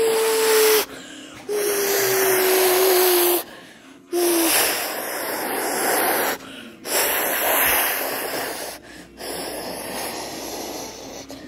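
Jet-engine whooshing for a hand-flown toy airliner: a run of breathy hisses, most about two seconds long, with short pauses between them. The first three carry a steady hum that sags slightly in pitch.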